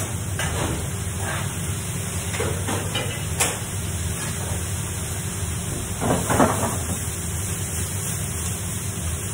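Food sizzling on a hot flat-top griddle over the steady hum of a kitchen extraction hood, with light clicks and scrapes of utensils on metal. A louder metal clatter of pans comes about six seconds in.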